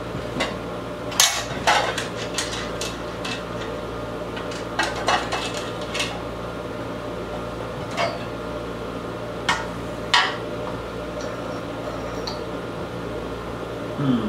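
Scattered metal and plastic clicks, clanks and knocks as a new chainsaw powerhead is handled on a workbench and its sprocket-side cover taken off for fitting the bar and chain, over a steady low hum.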